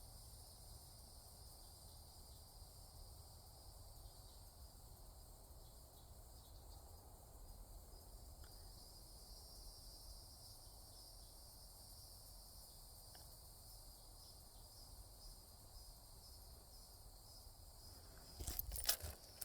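Faint, steady high-pitched chorus of insects such as crickets, over a low rumble of wind or handling noise, with a few brief knocks near the end.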